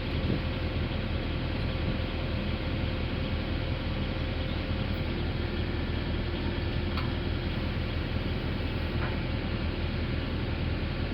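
Engine of a hydraulic pile-pressing rig running steadily with a constant low rumble and hum, and a faint click about seven seconds in.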